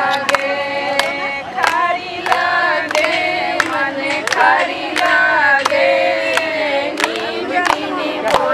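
A group of women singing a song together, with steady hand-clapping keeping time, about one to two claps a second.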